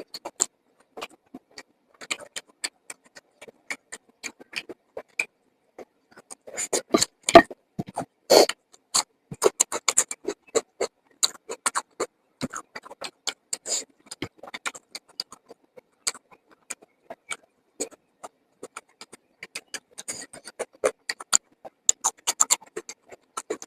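Close-miked eating sounds: irregular wet chewing clicks and mouth smacks, with a few louder bites, while eating kadhi pakora curry with rice.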